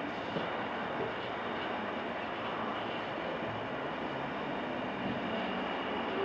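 Steady rolling noise of a steam-hauled passenger train under way, an even rumble with light rattles and faint ticks from the wheels and cars.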